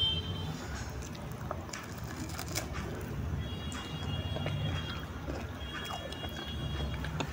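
A steel spoon stirring beef pieces and masala in an aluminium pressure cooker, with irregular clicks and scrapes of the spoon against the pot over a steady low hum. A faint thin high tone sounds twice in the background.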